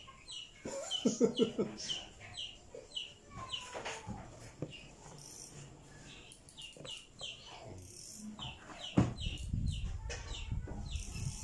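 Birds calling in quick, short repeated notes, several a second. A knock comes about nine seconds in, followed by low rustling.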